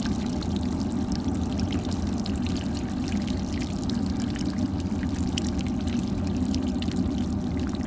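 Hot water poured steadily from a saucepan onto a frozen metal water hydrant, splashing off it onto the ground, to thaw the frozen spigot. The pour runs unbroken, with many small splashes.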